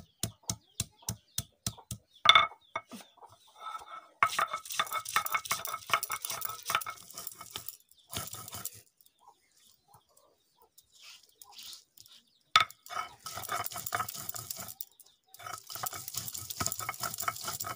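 A hand-held stone pounding garlic and ginger on a wet wooden block, evenly spaced knocks about four a second at first, then rubbed back and forth in quick scraping strokes to grind them to a paste. The grinding stops for a few seconds in the middle and starts again after another sharp knock.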